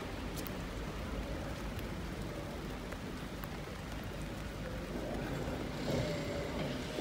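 Steady street traffic noise, with a faint hum and a slight rise in loudness about six seconds in.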